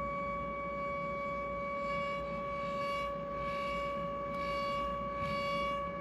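Steady electronic drone from a live improvised electronic sound setup: one held pitch with overtones, unchanging. From about two seconds in, a hiss in the upper range swells and fades about once a second over it.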